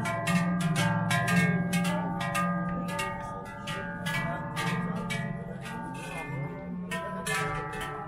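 Several large Appenzell herdsmen's cowbells (Schellen) shaken together in the traditional Schelleschötte, clanging in an uneven beat of several strokes a second with long ringing overtones, over a steady low hum.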